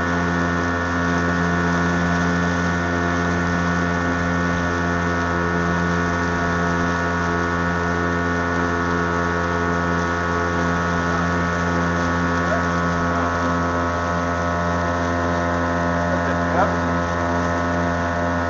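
Motorboat engine running at a steady speed, a constant many-toned drone that does not change pitch.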